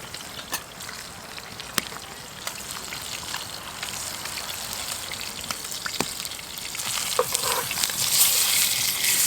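Food frying in a pan, a steady sizzle that grows louder near the end, with a few sharp clicks of a utensil against the pan.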